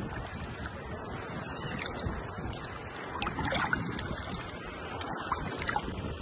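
Steady rustling, hissing noise with scattered small clicks and a few faint high chirps, in the manner of an outdoor ambience track.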